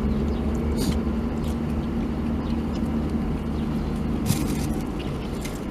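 Steady low hum inside a car's cabin, from the car's engine or climate fan running. A short rustle of food wrapper paper comes about four seconds in.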